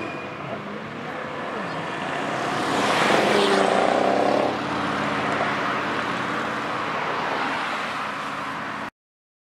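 Car engines and tyre noise of city traffic, swelling to a peak about three to four and a half seconds in as a car drives past, then easing off. The sound cuts off abruptly near the end.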